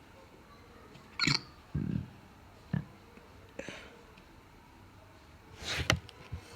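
A woman hiccuping: several short, sharp hiccups at uneven intervals, the loudest about a second in and a cluster near the end.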